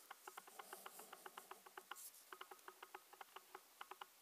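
Faint, quick, irregular small clicks and ticks of a metal pen's parts being handled and screwed back together, several a second.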